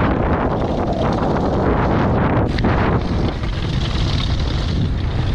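Mountain bike descending a rocky gravel trail at speed: tyres crunching over stones, the bike clattering and rattling, with wind rushing over the microphone and a sharp knock about two and a half seconds in. The bike's rattling is from a loose cassette.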